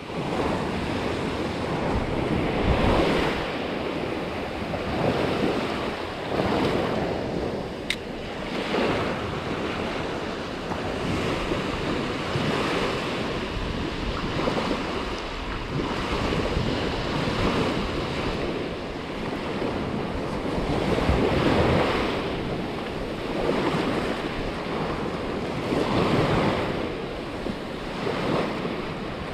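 Small waves breaking and washing up a sandy beach, surging and easing every few seconds, with wind buffeting the microphone.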